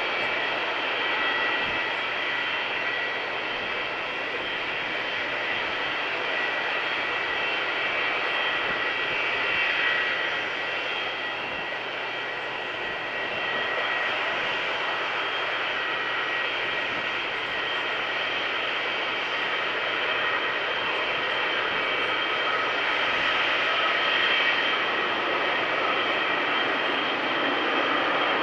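Boeing 737 twin jet engines running: a steady jet rush with a high, steady whine, dipping slightly a little before the middle and growing louder near the end.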